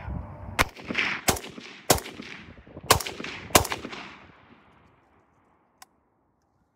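Century Arms RAS47 AK-pattern pistol in 7.62x39 firing five loud shots, unevenly spaced over about three seconds, each trailing off in a short echo.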